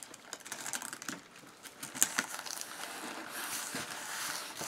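Hands rubbing and pressing a glued paper strip into a book's hinge: paper rustling and crinkling with small taps, and one sharp click about two seconds in.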